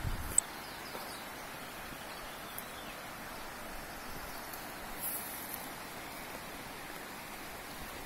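Steady outdoor ambience in a pine forest: a soft, even rushing hiss, with one sharp click about half a second in.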